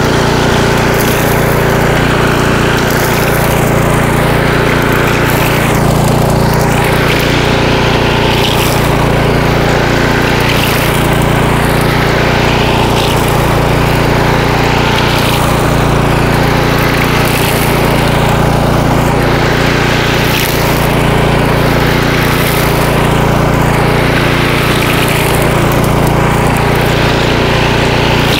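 A walk-behind string trimmer mower's 149cc Kohler XT675 single-cylinder engine running steadily under load while the spinning trimmer line cuts through thick, high weeds. A high hiss swells every second or two.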